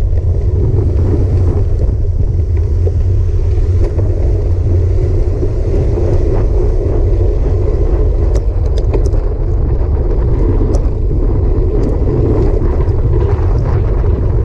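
Steady loud rumble of wind on the microphone of a handlebar-mounted action camera, with tyre and road noise from a road bike rolling on a paved trail. A few sharp clicks come about two-thirds of the way through.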